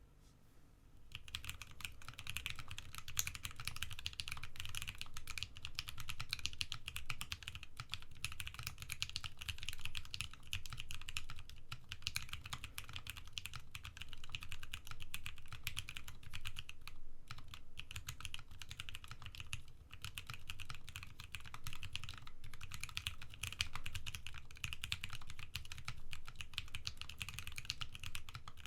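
Custom gasket-mounted mechanical keyboard with tactile Penguin switches on a brass plate being typed on continuously: a dense stream of key clacks that starts about a second in, broken by a few short pauses. The plate has no ping and the case no hollowness.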